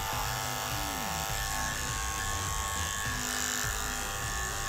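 Electric dog-grooming clippers, fitted with a number 10 blade, running steadily as they trim the hair on the inside of a Welsh Terrier's ear.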